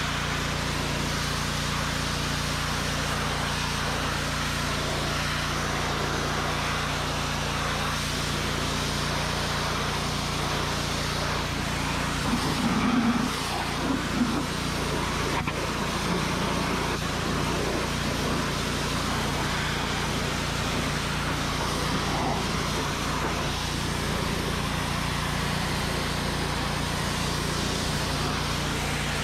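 Gas pressure washer with a Honda GX200 single-cylinder engine running steadily, with the hiss of the high-pressure spray striking the tractor's tyres and rims; the spray noise swells briefly about halfway through.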